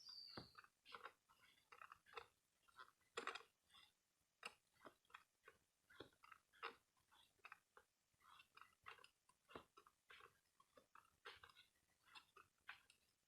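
Near silence broken by faint, irregular small clicks and ticks.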